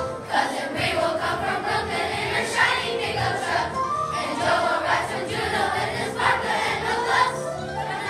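Elementary-school children's choir singing a Christmas song together.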